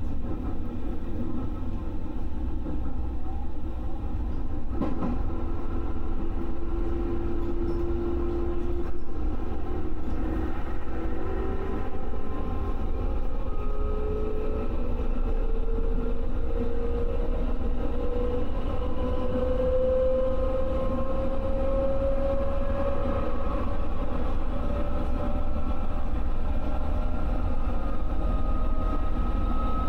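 JR West 221 series electric train running, heard from on board: a steady low rumble of wheels on rail under a motor whine that rises slowly in pitch as the train picks up speed.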